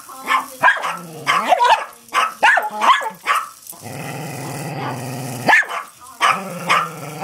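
Dogs barking sharply and repeatedly at a Hexbug robot toy, with a low steady growl lasting about a second and a half in the middle.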